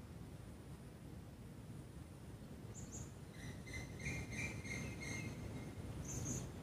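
A bird calling in a run of short, repeated chirps from about three and a half to five seconds in, with a couple of brief high chirps around it, over a low steady background rumble.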